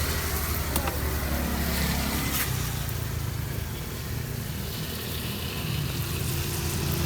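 Road traffic passing close by: a motor vehicle's engine running with a steady low hum.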